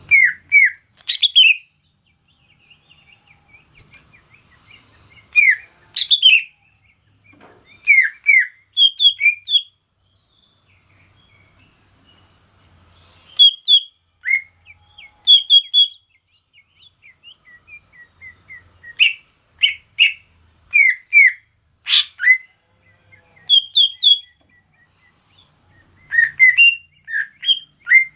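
A cucak ijo (greater green leafbird) singing: short clusters of loud, sharp, sliding whistled chirps, repeated every second or two with brief pauses between phrases.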